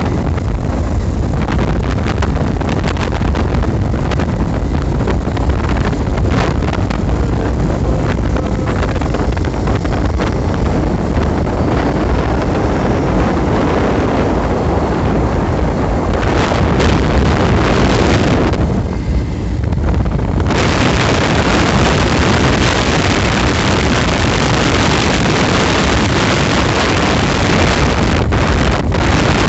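Wind buffeting the microphone: a loud, continuous rumble heaviest in the low end, with hiss above. About twenty seconds in, the hiss briefly drops away, then comes back brighter.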